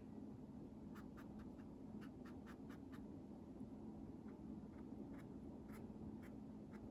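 Faint scratchy strokes of a watercolour brush on paper, as a string of short light scrapes, over a steady low hum.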